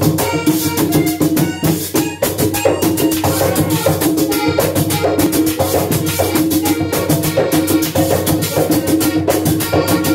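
Tamborito music, the Panamanian folk genre, played on drums with busy, steady percussion over sustained pitched tones.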